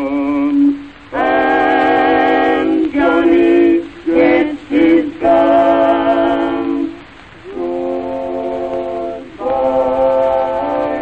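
Background music: voices singing long held notes in harmony, several phrases with short breaks between them.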